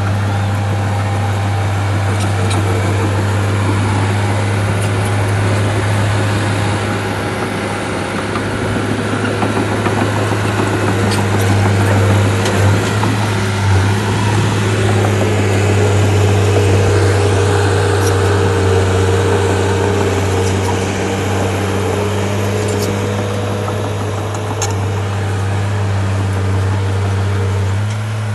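Bulldozer's diesel engine running steadily at a constant pitch, with a few light clicks and knocks.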